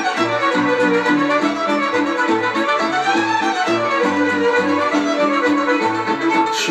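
Instrumental break in a Romanian folk song: a fiddle plays a running melody that sweeps up and down over a steady, rhythmic bass and band accompaniment.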